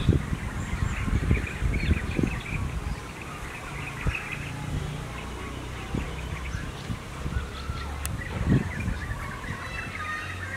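Outdoor ambience: birds chirping in the background over an uneven low rumble, with a steady low hum coming in about four seconds in.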